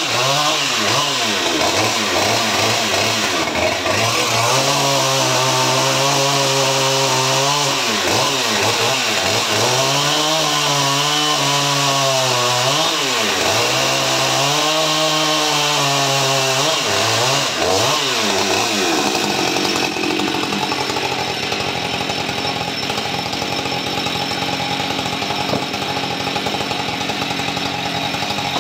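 Husqvarna 550 XP Mark II 50 cc two-stroke chainsaw running hard while cutting firewood rounds. Its pitch sags and recovers again and again as the chain loads up in the wood, then holds steadier for the last third.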